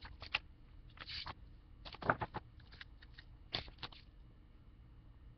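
Paper rustling and handling of a picture book as its page is turned: several short, faint rustles over about four seconds.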